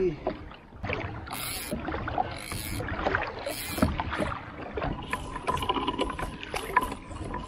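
Water lapping at a kayak hull, with irregular clicks and knocks from a fishing rod and reel being handled. A faint steady tone sounds for about two seconds past the middle.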